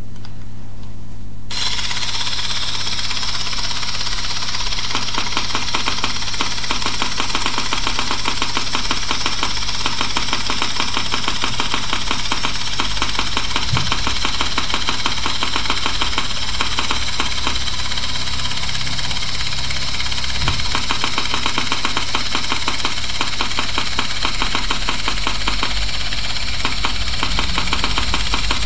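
Rapid clickety-click feedback sound from the 3Shape TRIOS scanning software as the intraoral scanner captures images, starting about a second and a half in, over a steady low hum.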